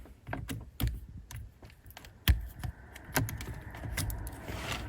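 Irregular light clicks and taps of small plastic parts being handled at a car's fuse box, the loudest about two seconds in, while the newly fitted 10 A fuse is checked. The fuse has blown again, the sign of a short on its circuit.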